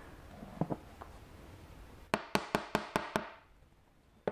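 Six sharp, quick taps on a flexible plastic cutting board, about five a second, knocking the last of the flour off into a bowl. Two faint knocks come about half a second in.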